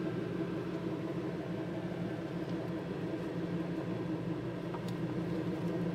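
A vehicle engine idling steadily, with a couple of faint clicks.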